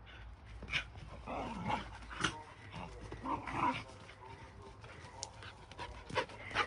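A Shiba Inu and a mixed-breed dog play-fighting, giving short dog vocal sounds in two bouts, about a second in and again about three seconds in, with a few sharp short noises between.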